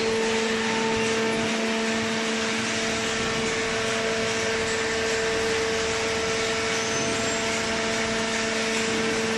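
Hydraulic baling press running, its electric motor and hydraulic pump giving a steady hum with a constant whine.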